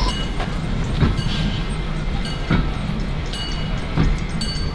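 Vintage railway passenger carriages rolling slowly past behind a steam locomotive, their wheels knocking over rail joints and points at uneven intervals of about a second over a steady rumble, with a faint wheel squeal near the end.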